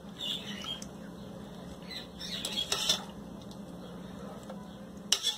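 Soaked dried red chiles being dropped and pressed into a plastic blender jar: soft wet handling and rustling, with a few sharp clicks about two and a half seconds in and again near the end.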